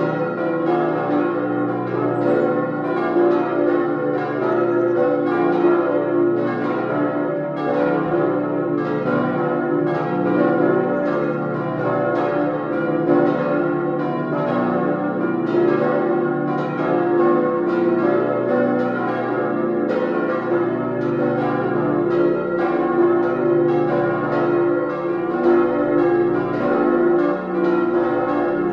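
Full peal of cast-steel church bells swinging together. Strikes from the different bells overlap in a steady, unbroken stream, and the long ringing tones of the bells sound beneath them.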